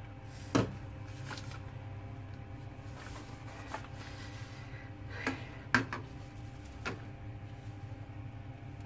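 A handful of short knocks and clinks as a slow cooker's glass lid and a plastic spatula are handled and set down on a stainless-steel counter, over a steady low hum. The loudest knocks come just after the start and a little before two-thirds of the way through.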